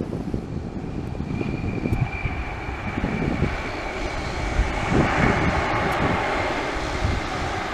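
Boeing 737 jet engines on the landing rollout: a thin high whine fades over the first few seconds, then a broad rushing engine noise builds to its loudest about five seconds in and eases off.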